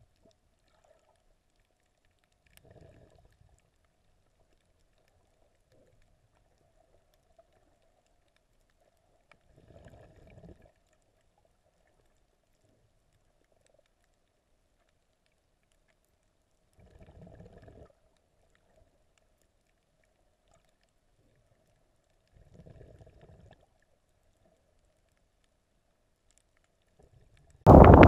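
Muffled underwater sound picked up by a submerged camera: mostly very quiet with a faint steady hum, broken by four short, low gushes about every six to seven seconds. Just before the end it cuts suddenly to loud wind buffeting the microphone above the water.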